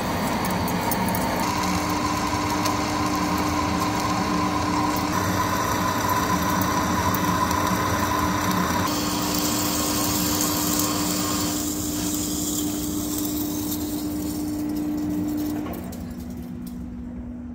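Hafco TM-26120G centre lathe running while a boring bar cuts inside the bore of a 6-inch steel chrome bar: a steady machining hum with a constant tone, the cutting noise changing abruptly a few times. Near the end the sound drops and the tone steps lower as the cut stops.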